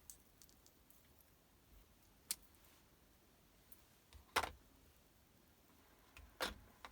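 Faint handling of steel tool bits and a socket adapter: three sharp clicks about two seconds apart, with a few fainter ticks between.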